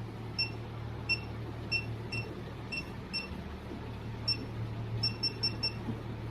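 Short, high electronic beeps, about eleven at uneven intervals with a quick run of four about five seconds in, from the buttons of an electric chiropractic adjusting gun as its power is set to about 1000. A low steady hum runs underneath.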